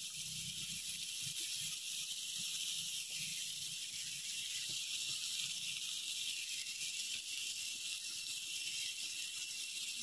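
Shrimp, cuttlefish and beef sizzling in butter on a hot griddle pan over a gas camping stove: a steady high hiss.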